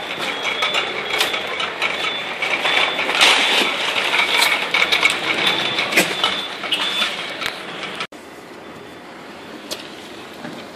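Clattering mechanical noise with many clicks and repeated short, high squeaks. About eight seconds in it cuts off abruptly to a quieter, steady background.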